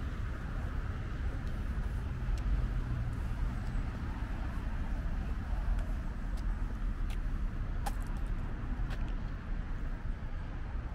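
Steady city street ambience: a continuous low traffic rumble with a few faint, scattered clicks.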